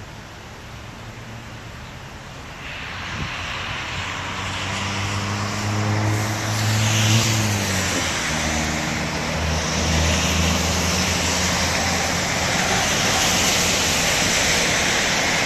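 A motor vehicle passing close by: an engine hum that drops in pitch about seven and a half seconds in, over a rushing noise that swells a few seconds in and stays.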